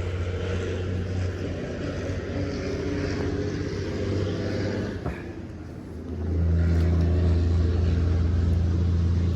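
A motorboat's engine running steadily with a low hum. It eases off about five seconds in, then runs louder from about six seconds in.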